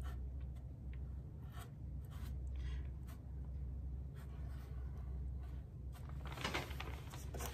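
Small paintbrush scrubbing and dabbing black stain onto the rough wooden edge of a sled, a series of short, faint scratchy strokes over a steady low room hum.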